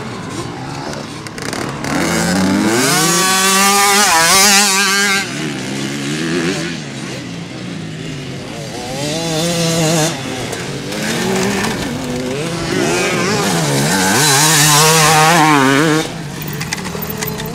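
Motocross dirt bike engines revving up and down as bikes ride by on the track, with two loud passes, the first a couple of seconds in and the second near the end.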